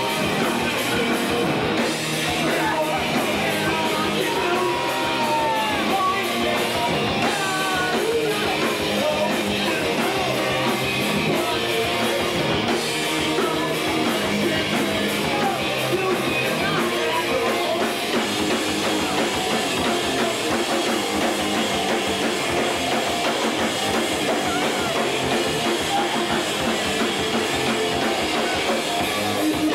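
Rock music with guitar, a drum kit and singing, playing steadily throughout.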